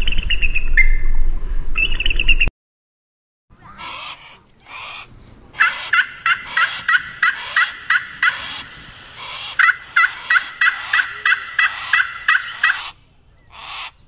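A northern lapwing chick peeps over wind noise, then after a brief silence a male black grouse calls: a few harsh calls, then a rapid run of about three a second lasting some seven seconds, then a few more spaced out.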